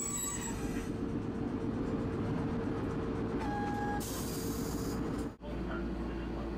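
Tosaden streetcar running, heard from inside the car: a steady rumble with a constant tone over it. Just past halfway comes a short beep, then a hiss lasting about a second. Near the end the sound drops out for an instant and the rumble resumes at a slightly different pitch.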